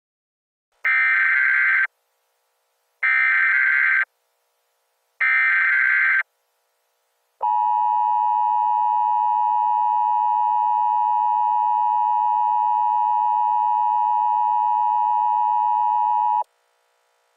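Emergency Alert System opening: three one-second bursts of buzzing digital SAME header data, about a second apart. Then the steady two-tone EAS attention signal holds for about nine seconds and cuts off.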